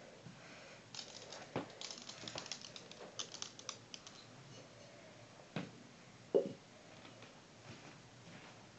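Quiet handling noises: a run of light clicks and rattles, then two knocks about five and a half and six and a half seconds in. No vacuum motor is running.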